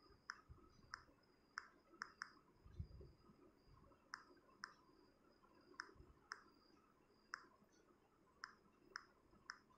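Soft clicks of taps on a smartphone's on-screen keyboard as a web address is typed letter by letter, about fifteen irregularly spaced clicks.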